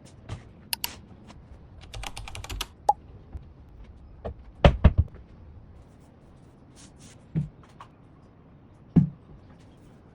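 Household objects being handled and set down while tidying a room: scattered sharp clicks, a quick rattling clatter about two seconds in, then a few louder dull thumps and knocks.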